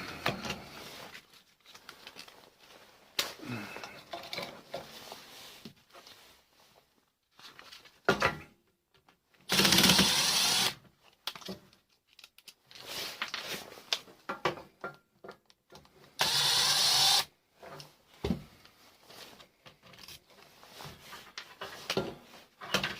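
Handling of metal parts and tools while wiring is stripped out of a microwave oven: scattered clicks and rattles, broken twice by a harsh burst of noise about a second long that starts and stops abruptly.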